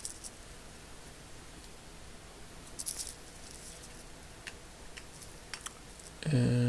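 Faint scraping and small clicks of a flathead screwdriver turning the small slotted screws out of a ratchet's steel cover plate, with a short scratchy scrape about three seconds in.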